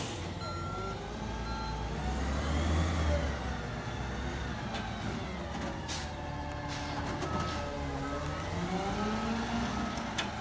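Crane Carrier LET2 garbage truck with a McNeilus ZR side-loader body, its engine revving up and down as it manoeuvres. A few short, sharp air-brake hisses come around the middle, and the reversing beeper starts beeping steadily near the end.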